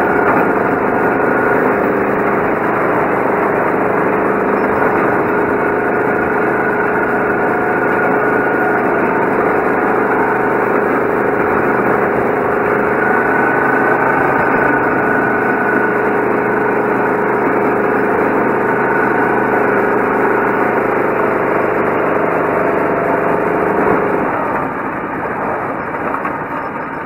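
Go-kart's small engine running at a steady, held speed, heard from on board the kart. About three seconds before the end the engine note drops and gets quieter as the kart slows.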